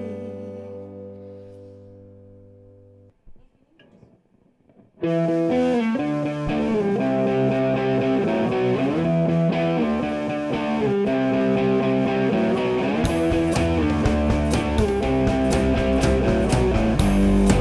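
A live rock band's last held chord fades out over about three seconds, followed by a short near-silent pause. About five seconds in, the band starts the next song's instrumental intro, led by distorted electric guitar, and it grows fuller with heavier bass and sharp rhythmic strikes several seconds later.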